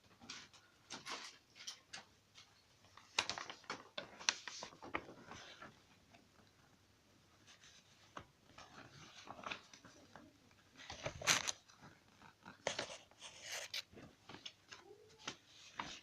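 Irregular clicks, knocks and rustles of objects being handled and moved about, in a small room, with louder clusters about three to five seconds in and again near eleven and thirteen seconds.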